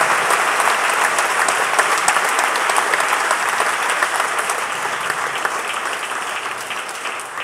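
Audience applauding, a dense run of clapping that slowly fades toward the end.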